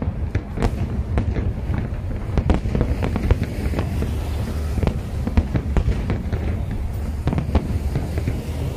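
Aerial fireworks display: a dense barrage of shell bursts, many sharp bangs a second over a steady low rumble.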